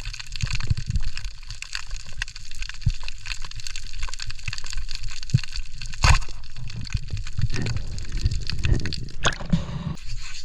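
Underwater sound picked up by a camera: constant fine crackling, with low thumps and swishes of water moving around the housing. A sharp knock comes about six seconds in.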